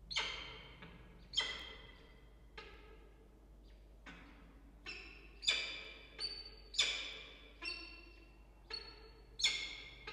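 Downy peregrine falcon chicks begging at feeding time: a string of short, high calls, about one a second, each sharp at the start and trailing off.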